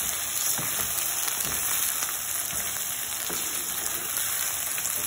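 Raw chicken pieces sizzling in hot oil and fried onions in a frying pan at the start of browning, with a steady hiss. A wooden spatula stirs them, scraping against the pan a few times.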